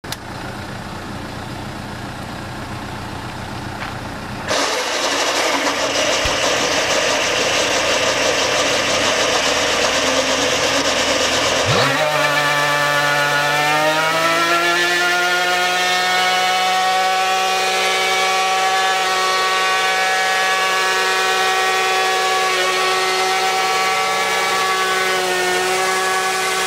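A machine's motor: steady noise that jumps louder about four seconds in, then a hum that rises in pitch about halfway through and settles at a steady running speed.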